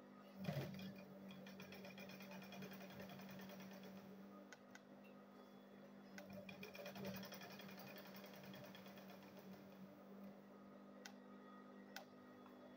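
Sewing machine running and stitching a seam, faint: a steady low hum with a fast, even ticking of the needle.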